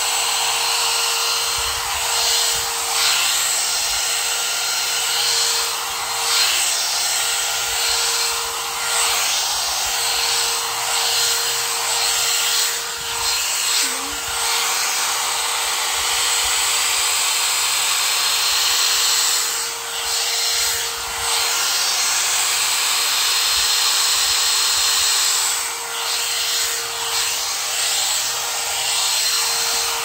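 One-step hot air brush hair dryer blowing, a steady rush of air over a steady motor whine. The rush dips and swells as the bristle brush head is worked through hair.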